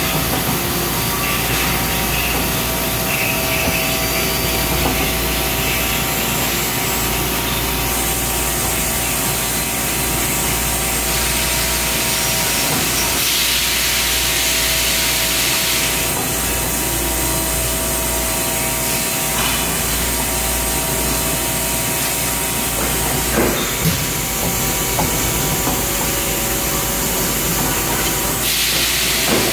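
2011 Samsung 6TL CNC lathe running: a steady machine hum with several held whining tones. A louder hiss comes in about thirteen seconds in for a few seconds and again near the end, and there are a couple of short sharp clicks about two-thirds of the way through.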